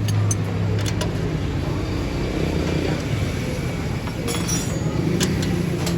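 Toyota Corolla Altis engine running steadily with a low hum, with several sharp clicks or taps over it.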